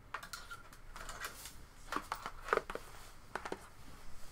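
Hand-handling noises on a desktop: scattered light clicks and rustles as a power lead is unwound and handled beside a plastic alarm clock, with a few sharper knocks about two to three and a half seconds in.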